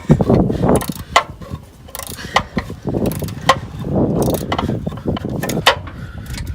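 Hand ratchet clicking in short, irregular strokes as it works a tight starter mounting bolt on a Mazda B2500 pickup.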